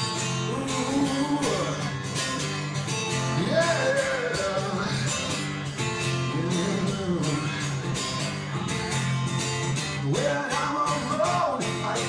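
A man singing in long, sliding notes over a strummed acoustic guitar, played live.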